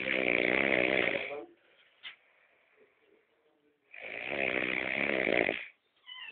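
A man snoring in his sleep: two long, loud snores about four seconds apart, each lasting about a second and a half, with a quiet pause between.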